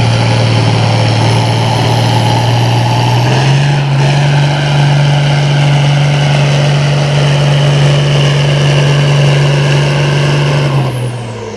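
Farm tractor engine running hard under load during a pull, with a high whine climbing above it. The engine note steps up in pitch about a third of the way in and holds. Near the end it falls away and gets quieter as the throttle comes off.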